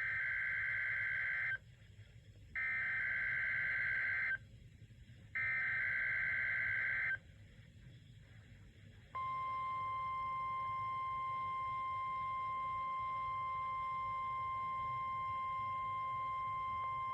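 NOAA Weather Radio Required Weekly Test alert signal: three short bursts of EAS SAME header data, a burst just under two seconds long, each separated by a short gap. After about two seconds of quiet comes the steady single-pitch 1050 Hz warning alarm tone, which begins about nine seconds in and holds.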